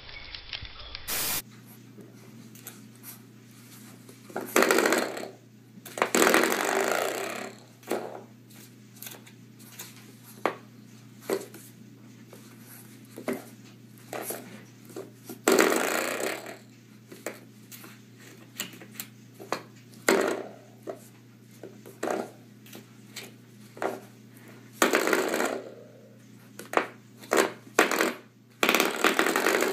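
A coiled-spring door stopper being flicked by a French bulldog puppy's paw, twanging with short metallic boings again and again; the harder flicks ring on for up to about a second. A steady low hum runs underneath.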